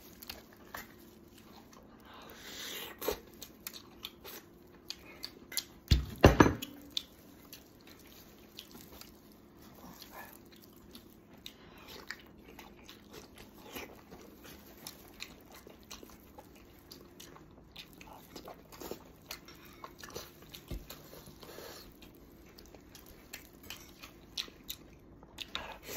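Close-up eating sounds: braised pig's head meat torn by gloved hands, bitten and chewed, with many small wet clicks and smacks. A loud thump comes about six seconds in.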